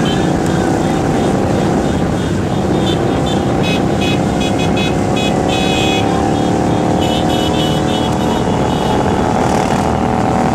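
Many cruiser motorcycles running together in a large group ride, a steady engine drone with pitches drifting slowly up and down as the bikes ride along, over dense wind and road noise.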